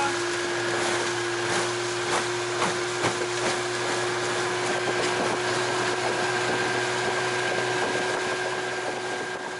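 A jon boat's motor running steadily under way, a constant whine over a rushing haze of wind and water, with a few light knocks.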